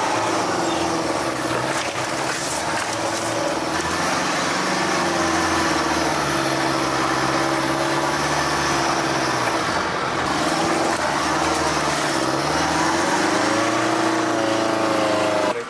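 Off-road 4x4 engine running under load while driving a rough track. Its pitch dips and climbs again a couple of times as the revs change.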